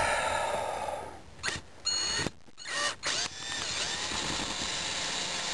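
Cordless screw gun with a square bit backing a screw out of RV vinyl trim. The drill runs loud for about a second, then in three short trigger bursts, then steadily near the end, where the screw just spins in place instead of coming out because it is not holding in the door.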